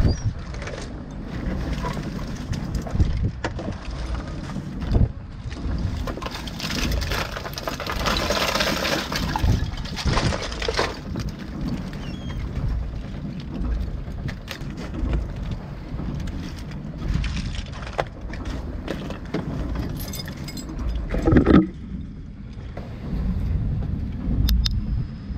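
A fishing boat's engine running steadily beneath the clatter of shells, starfish and mantis shrimp being raked and sorted by hand on the deck. A louder rushing hiss comes in for a few seconds early on, and there is one sharp knock near the end.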